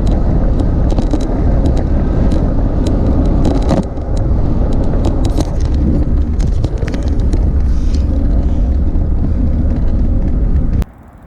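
Wind rushing over the microphone of a camera on a moving road bicycle, a loud steady rumble with scattered light ticks, cutting off abruptly just before the end.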